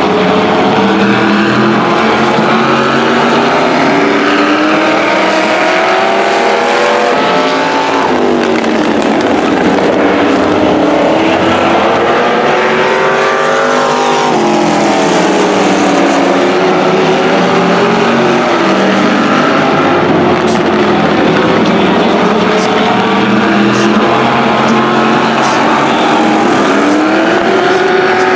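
Several car engines running hard as demo cars lap a speedway oval, their pitches rising and falling in overlapping sweeps. The pitch dips down and back up sharply as cars pass, twice near the middle.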